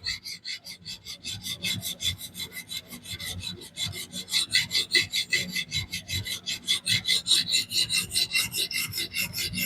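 400-grit diamond plate on a fixed-angle sharpener stroked quickly and evenly back and forth along the edge of a DC53 steel knife: a steady rasping of steel on diamond. Only the weight of the stone and holder presses it, as the scratch pattern is refined after flipping the burr.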